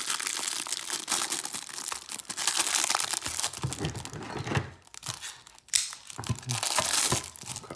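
Clear plastic bag crinkling as it is worked open by hand, a dense crackle with a short lull about five seconds in.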